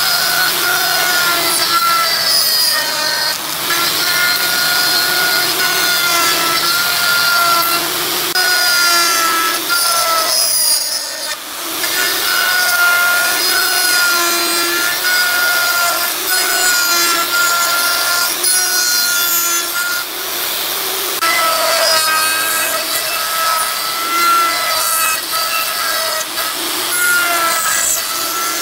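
A saw cutting wood in repeated passes, with a wavering whine that breaks off every second or two. There is a brief drop in the sound about eleven seconds in.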